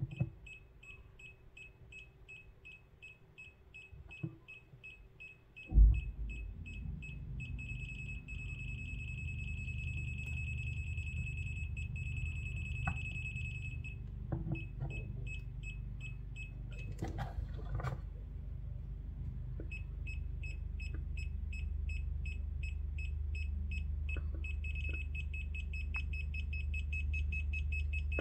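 Kaiweets ST100 voltage tester beeping in non-contact (NCV) mode: a high-pitched beep repeating about five times a second, running into a near-continuous tone while the probe is held at the kettle base connector, signalling detected AC voltage. The beeping stops for a few seconds in the middle and resumes, faster again near the end. A thump about six seconds in, with a low steady hum underneath after it.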